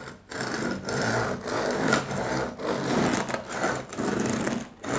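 Serrated bread knife sawing back and forth through a loaf's thick, dark, crisp crust, a crackling rasp with each stroke. The sound of a well-baked crust, the kind a baker looks for in good bread.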